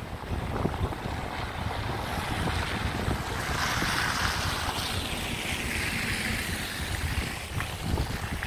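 A car driving on a snowy road: steady low tyre and road rumble with wind noise. A rushing hiss swells about two seconds in, falls in pitch and fades away near the end.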